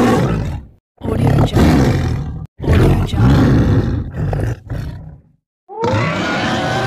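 Film-style dinosaur roar sound effects voicing a Daspletosaurus: a run of deep, growling roars a second or two long, broken by short pauses, and a clearer, more pitched roar starting near the end.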